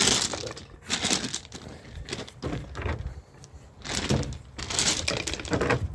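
Loose rocks and gravel being scraped and shifted by hand, clearing them out of a gate's path, heard as several short spells of crunching and clatter.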